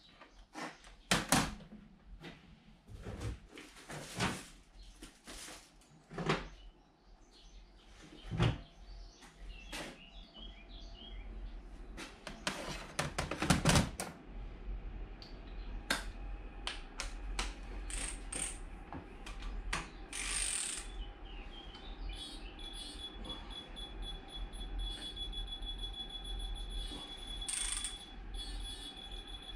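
Irregular sharp clicks and metallic clinks of hand tools and parts being handled on a motorcycle engine. From about halfway a steady low hum and a thin high-pitched tone run underneath.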